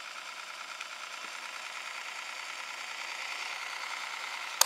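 Onn portable cassette recorder winding its tape at high speed on rewind: a steady motor-and-reel whir that grows slightly louder, cut by a sharp click near the end.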